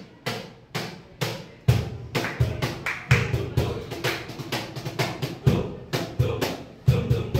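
Drum-led music with a steady beat: single sharp strikes about twice a second at first, filling out into a busier pattern with deep thumps after a couple of seconds.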